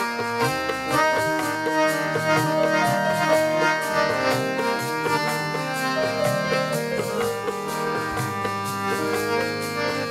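Instrumental interlude of Sikh dharna kirtan: a harmonium plays the melody over a dholak and tabla keeping a steady beat.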